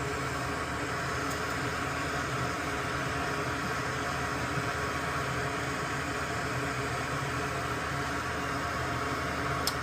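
Steady fan-like hiss and hum from a running machine, with a single faint click near the end.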